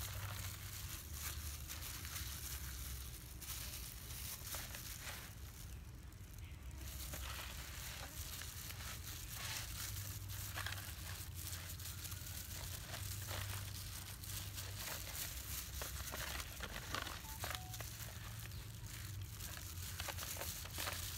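Clear plastic glove crinkling as a hand rubs marinade into raw pig legs in a metal tray, making many small irregular crackles and rustles over a low hum.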